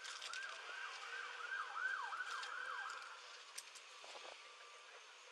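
Faint emergency vehicle siren sweeping quickly up and down in a yelp, the sweeps speeding up before it cuts off about three seconds in.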